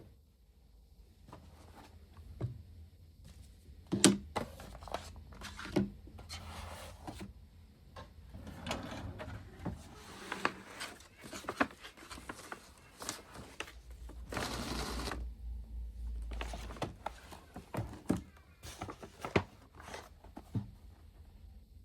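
Household handling sounds: a run of light clicks and knocks with brief rustles, and a longer rushing noise with a low rumble about fourteen to seventeen seconds in.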